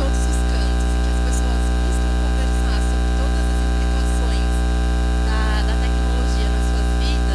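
Loud, steady electrical mains hum with a long stack of even overtones, unchanging throughout, with only faint scattered sounds underneath.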